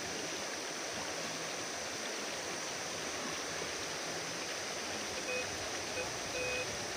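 Steady rush of a waterfall and stream. About five seconds in, a Minelab Vanquish 440 metal detector gives several short beeps, signalling a metal target in the ground.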